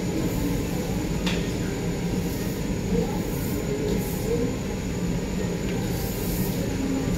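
Steady low rumble of background noise around a teppanyaki grill, with faint chatter and a sharp click about a second in.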